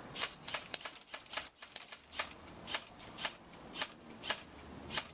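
A series of short, sharp clicks or snaps: a quick irregular cluster in the first two seconds, then a steadier run of about two a second, over a faint hiss.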